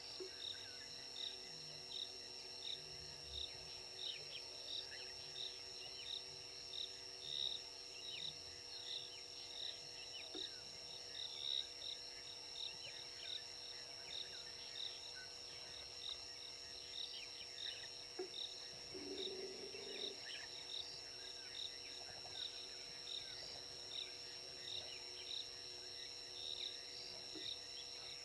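Evening insect chorus of crickets: a steady high buzz with a rhythmic chirp repeating a little more than once a second. A brief lower sound comes about two-thirds of the way through.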